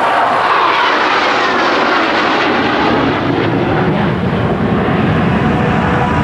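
Four F-16 Fighting Falcon jets passing in close diamond formation: a loud, steady jet roar with a whine that falls in pitch over the first couple of seconds, the deep rumble building in the second half.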